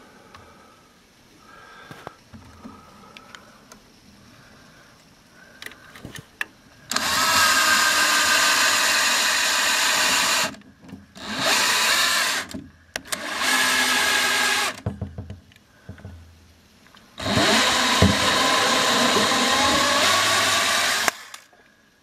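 Power drill boring out the pressure-switch port on a furnace's inducer housing with a 5/32 bit, enlarging it as a temporary fix for a code 31 pressure-switch fault. It runs in four steady bursts of one to four seconds each, the first starting about seven seconds in, with light handling clicks before it.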